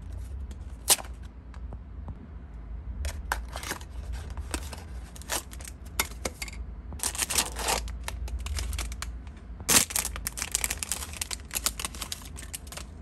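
Hands opening a small cardboard blind box, with sharp clicks and scrapes of the flaps. Then a silver foil bag crinkles and is torn open in two longer rustling bursts.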